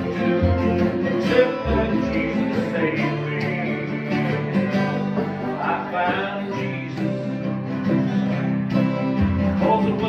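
Bluegrass jam band playing an instrumental passage: acoustic guitar and other plucked string instruments over a steady, repeating bass line.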